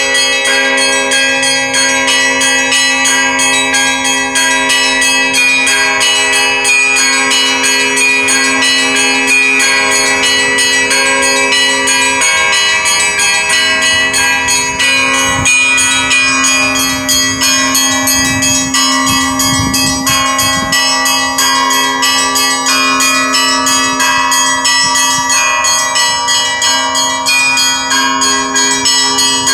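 Russian Orthodox church bells rung together in a continuous peal: smaller bells struck in quick succession over the sustained ringing tone of a larger bell.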